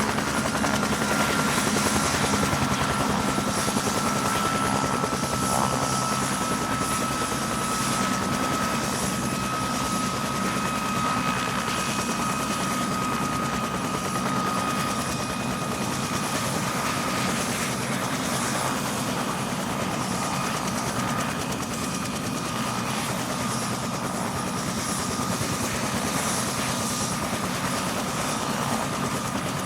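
Ambulance helicopter running steadily, with dense rotor and engine noise and a high turbine whine that sinks slowly in pitch.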